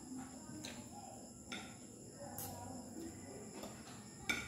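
Quiet eating sounds: chewing with a handful of light, sharp clicks of a utensil or the mouth, the loudest one near the end.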